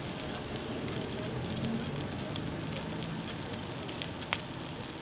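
Grass and brush fire crackling: a steady hiss of burning dry vegetation, broken by scattered sharp pops, with one louder pop near the end.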